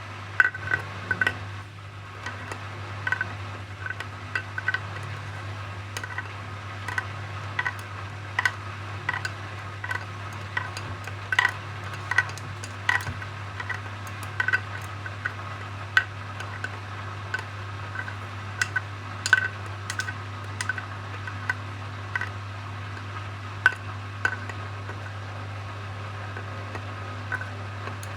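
Hoover HW411AMC washing machine in its final spin cycle: a steady low hum with irregular sharp clinks and ticks.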